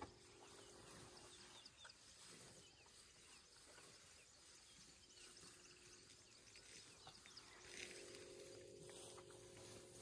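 Near silence: faint open-air ambience with soft rustling of African elephants grazing, their trunks pulling at long grass, and a few faint high chirps.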